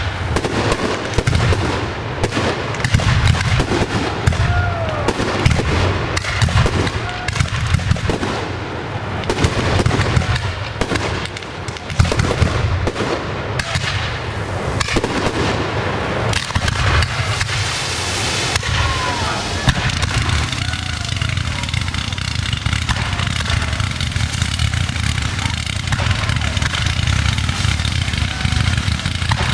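Professional fireworks display: rapid bangs of aerial shells for roughly the first half, then a burst of crackling and fewer, steadier explosions over a continuous low rumble.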